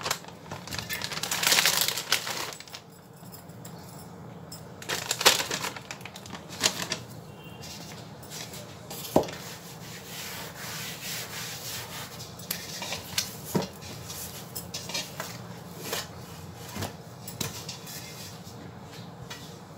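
Hands working risen bread dough and flour: rubbing and scraping as flour is spread over a silicone baking mat and the dough is turned out of a steel mixing bowl. A few light knocks come through, with the loudest scraping in the first couple of seconds.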